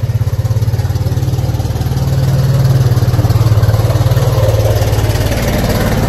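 Quad bike (ATV) engine running close by as it comes along the lane, with a fast low pulsing that grows louder about two seconds in and eases slightly near the end.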